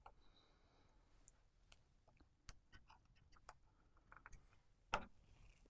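Faint, sparse small clicks and taps from handling small iPhone parts while pressing a replacement dock connector into place, with one louder click about five seconds in.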